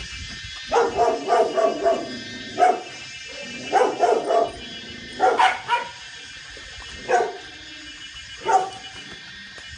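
A dog barking in short bursts: a quick run of several barks about a second in, then pairs and single barks a second or more apart.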